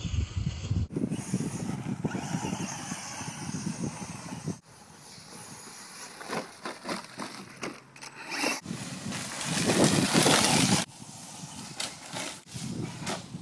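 Radio-controlled short course truck driving over grass and gravel, a noisy, mostly hissing sound with several abrupt changes; the loudest stretch comes about nine to eleven seconds in.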